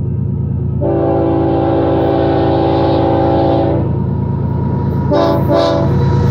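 Air horn of an approaching BNSF ES44C4 diesel locomotive sounding one long chord of about three seconds, then two short blasts close together near the end, over the low rumble of the oncoming train.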